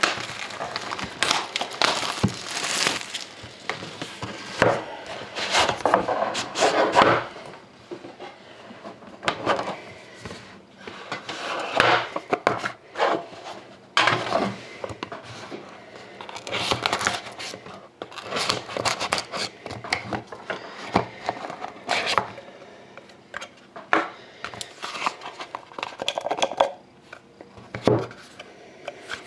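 Plastic shrink-wrap being picked, torn and crinkled off a sealed cardboard trading-card box, with hands scratching and tapping on the box. Near the end the box lid is opened and the stack of cards is handled.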